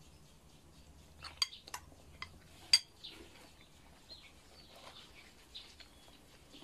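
A spoon clinking against a bowl and the bowl set down on a table: about five sharp clinks between one and three seconds in, the last the loudest. Birds chirp faintly throughout.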